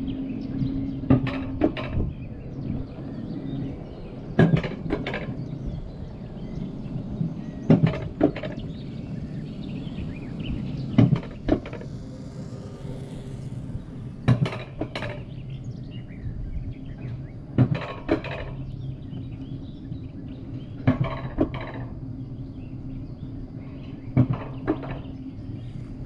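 Wiegand alpine coaster sled running down its steel tube track, heard from on board: a steady low rolling rumble with sharp metallic clacks, mostly in pairs, every couple of seconds as the wheels pass over the rail joints.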